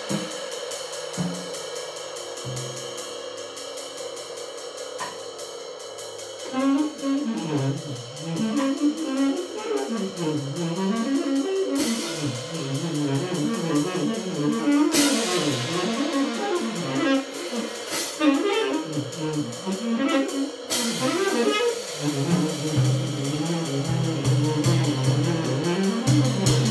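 Tenor saxophone and drum kit improvising freely together. It opens quietly with sparse low sax notes, then about six seconds in the sax breaks into fast, winding runs over cymbals and drums, and near the end it settles onto long held low notes.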